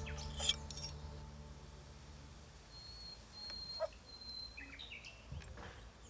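Background music fading out in the first second. Then quiet outdoor ambience with a few short bird chirps.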